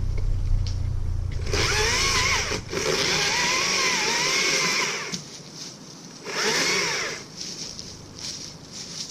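Battery chainsaw cutting into a maple trunk in bursts, its motor whine wavering and dipping in pitch as the chain loads up in the wood. It runs from about one and a half to five seconds in, stops, then gives a shorter burst about a second later.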